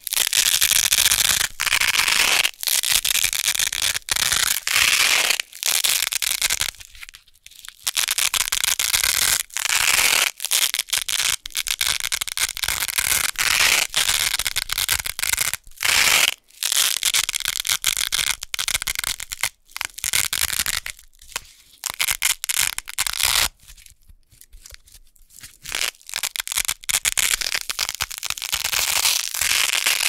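Two rolls of hook-and-loop (Velcro) tape, hook side against loop side, pressed together and pulled apart, giving crisp, crunchy ripping crackles in long runs with a few short breaks, the longest about seven seconds in and around two-thirds of the way through.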